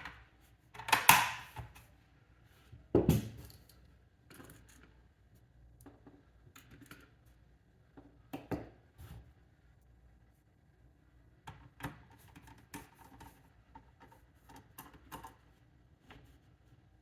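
ViewSonic NMP660 Chromebox case being handled as its lid is fitted back on: two loud clacks about one and three seconds in, then scattered light clicks and taps.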